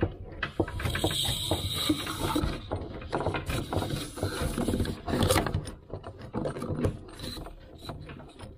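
Metal tap spanner clicking and scraping as it screws the backing nut up onto a kitchen mixer tap's threaded shank under the sink, in quick irregular clicks and knocks, loudest just after halfway.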